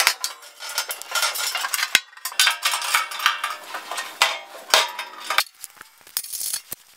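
Metal storage box for a wood chipper being handled: its sheet-metal panels and hinged lids clank and rattle, with some ringing. Near the end the clatter gives way to a few small, separate clicks of bolts and hardware being handled.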